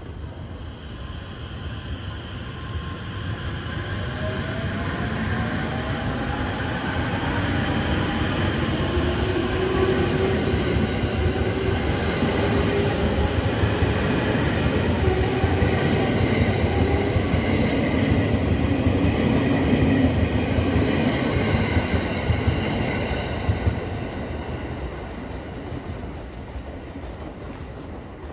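E231 series 800-subseries electric multiple unit pulling away from a platform and accelerating past, its traction equipment whining in slowly rising tones over the rumble of the wheels and clacks at rail joints. The sound builds as the cars roll by, then fades as the train draws away.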